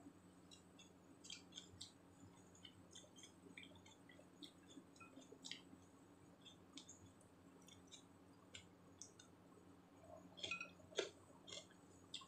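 Close-up chewing of a raw vegetable salad of greens, cucumber and carrot: faint crunches and small mouth clicks scattered throughout, with a few louder sharp clicks about ten to eleven seconds in.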